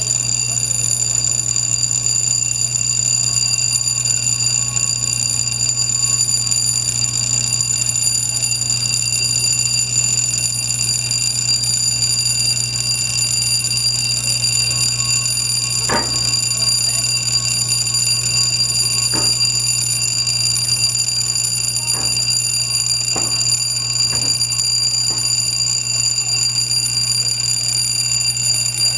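A steady warning alarm tone sounding without a break over a low steady hum, as the lock gate swings. A few short knocks come in the second half.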